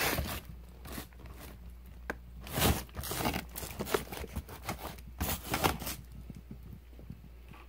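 Frozen-food packages being handled in a chest freezer: plastic bags and cardboard boxes rustling and crinkling in several short bursts, over a low steady hum.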